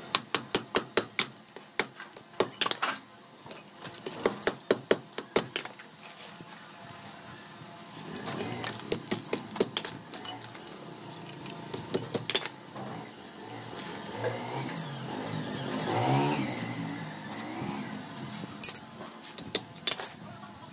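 Hand hammer striking a flat steel strip on a steel anvil block in runs of quick blows, about three a second, with pauses between the runs, the strip being bent cold into tongs.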